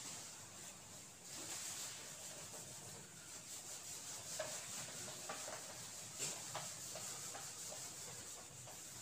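A whiteboard being wiped clean: faint rubbing across the board, with a few short squeaks in the middle.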